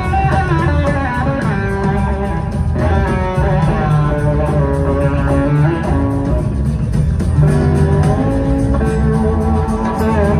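Live blues-rock band playing an instrumental passage with no singing: electric guitar lines that bend and glide over drums and bass.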